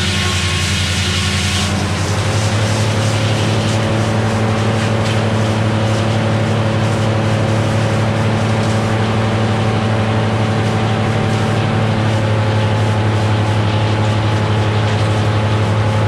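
Naturally aspirated Cummins diesel power unit of a Meadows No. 1 sawmill running steadily. About two seconds in its note steps up and grows louder, and a high hiss cuts off at the same moment.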